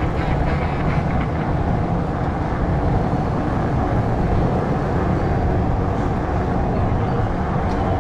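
Steady low rumble of street traffic, motorcycles among it, heard from a fat bike rolling along the road.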